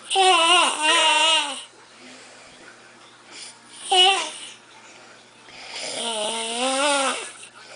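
A sleeping man snoring through his nose on the in-breath, making a wavering whine three times: a long one at the start, a short one about four seconds in, and a longer one near the end. The first is the loudest.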